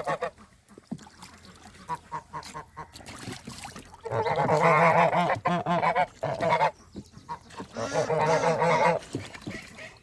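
Geese honking loudly in two long runs of rapid, wavering calls, one starting about four seconds in and another near the end, with quieter scattered calls before them.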